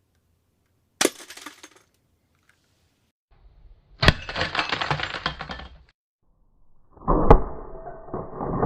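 Airsoft pistol shots at a light bulb and the bulb's glass breaking: three sharp cracks, about a second, four seconds and seven seconds in. Each crack is followed by a clinking, rattling clatter, the longest after the second crack.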